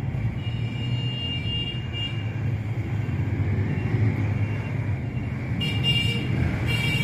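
Steady low background rumble, with faint high-pitched tones that come and go, clearest near the start and again from about six seconds in.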